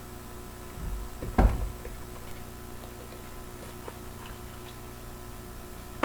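A loud knock about a second and a half in, then a few faint clicks, from handling a Warnant revolver.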